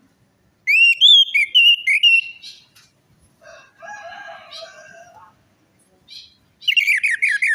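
Orange-headed thrush (anis merah) song: loud whistled phrases sliding up and down, then a quieter, lower passage, and near the end a quick run of short falling notes.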